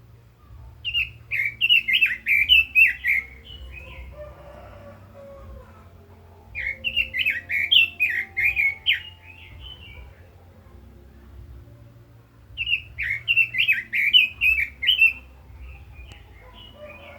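Red-billed leiothrix singing: three rapid warbling song phrases, each about three seconds long, roughly six seconds apart.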